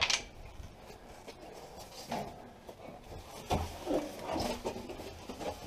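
Scattered knocks and rubbing from handling an RV water heater and its wiring while fitting it into an opening in a trailer wall, with a sharp knock at the start.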